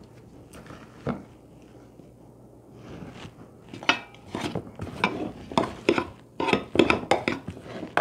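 Metal spoon scraping and knocking against a mixing bowl and a bundt pan while scooping a thick seed-and-fat suet mixture. A single knock about a second in, then irregular scrapes and taps from about four seconds on.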